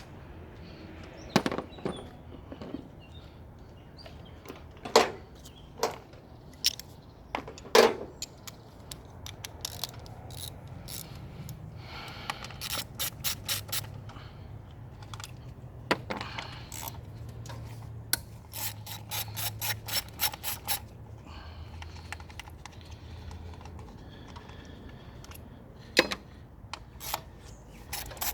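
Hand ratchet wrench clicking in short runs of about five clicks a second, between sharp knocks and clinks of tools against metal.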